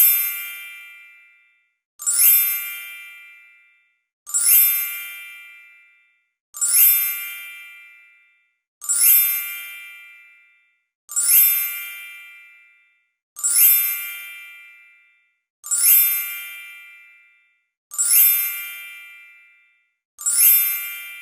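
A bell-like chime sound effect dinging about ten times at an even pace, roughly one every two seconds, each strike ringing out and fading to silence before the next.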